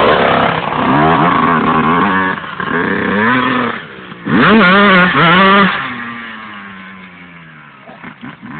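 Yamaha YZ250 two-stroke dirt bike engine revving up and down under throttle, with a hard burst of revs about four seconds in, then fading as the bike moves away.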